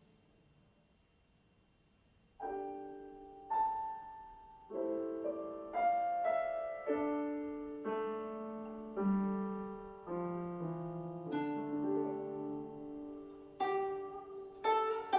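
Guzheng and piano duet. A note dies away to a quiet pause for about two seconds, then the two instruments play slow, ringing chords about once a second, with sharper, brighter plucks near the end.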